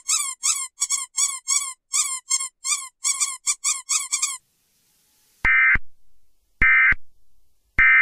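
A squeaky rubber dog toy squeaked over and over, about five squeaks a second, for roughly four seconds. After a pause of about a second come three short identical bursts of Emergency Alert System digital data tones, about a second apart: the end-of-message signal.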